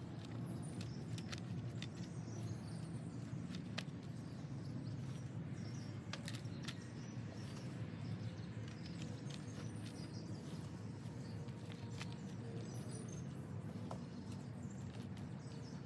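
Steady low background rumble with many small scattered clicks and a few faint chirps.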